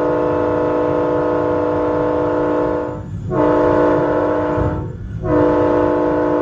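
Locomotive air horn sounding a chord of several notes for a grade crossing, heard from the cab over the train's running rumble. A long blast breaks off about three seconds in, a shorter blast follows, and another long blast starts about five seconds in.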